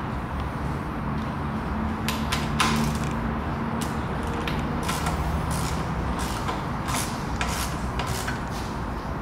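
Irregular sharp metallic clicks, knocks and light scraping of hands and parts at a motorcycle's front wheel hub as the wheel is fitted to a new Honda NX500, with the loudest knock a little over two seconds in.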